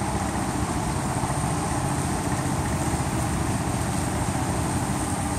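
Steady low rumble of truck engines running on the roadside, under an even hiss.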